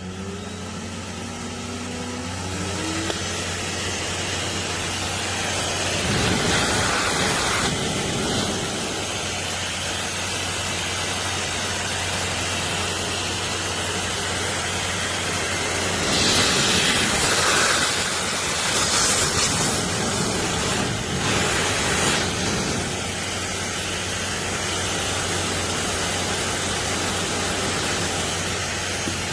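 Pecute high-velocity dog hair dryer running, its blower motor rising in pitch and level over the first few seconds, then a steady loud rush of air. The air noise surges louder about six seconds in and again from about sixteen to twenty-two seconds.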